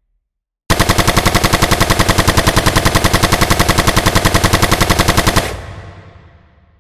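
Automatic rifle fire sound effect: one sustained burst of rapid shots, about ten a second, that starts suddenly about a second in, runs for about four and a half seconds, and stops, leaving a fading echo.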